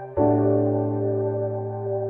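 Background music: sustained keyboard chords, with a new chord struck just after the start and held.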